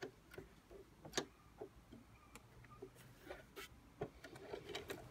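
Singer Heavy Duty sewing machine with a walking foot, worked slowly by hand through leather: faint, irregular clicks and ticks from the needle and walking-foot mechanism as each stitch goes in.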